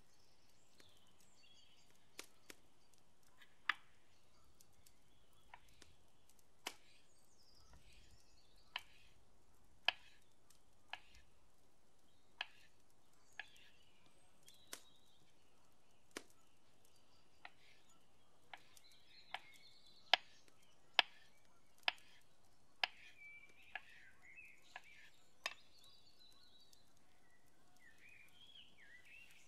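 Kitchen knife cutting avocado on a wooden cutting board: about twenty sharp taps of the blade on the board, roughly one a second, loudest a little past the middle. Birds chirp faintly in the background.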